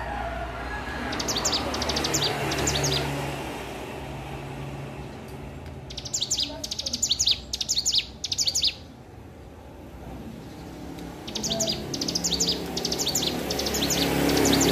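Ciblek gunung, a young prinia practising its song: three bouts of rapid, high, chattering notes, the last one the longest, over a low steady hum.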